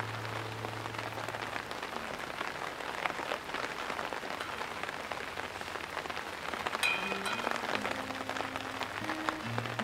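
Heavy rain falling steadily, with many small drops pattering on the pool water and the rock. Soft background music fades out near the start and comes back quietly near the end. A short high-pitched sound comes about seven seconds in.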